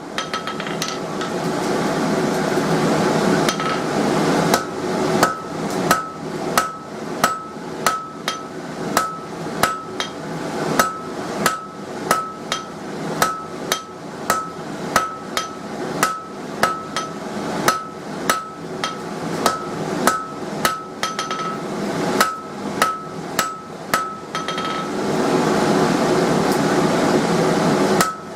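Blacksmith's hand hammer striking a 16 mm square steel bar on an anvil while forging a chisel point, at about two blows a second, each blow with a short ringing note. The hammering stops near the end, leaving a steady rushing noise.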